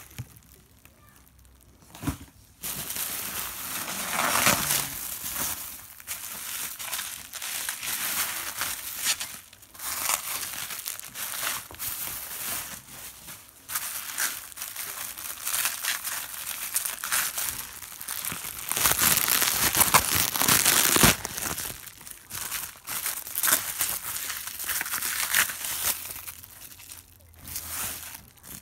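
Plastic bubble wrap crinkling and rustling as it is handled and pulled off a glass bottle. It starts about two seconds in, after a quiet moment, and is loudest a little past two-thirds of the way through.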